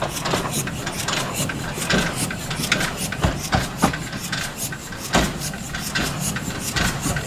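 760 mm narrow-gauge steam locomotive 394.057 moving at low speed, its running gear clanking with frequent irregular sharp knocks over a steady low hum.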